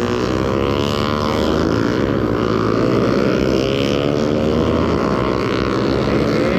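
Motorcycle engine running steadily, its pitch wavering slightly, then revving up near the end.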